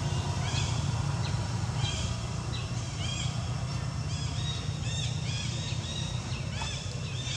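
Small birds chirping, many short arched calls repeating and overlapping, over a steady low hum.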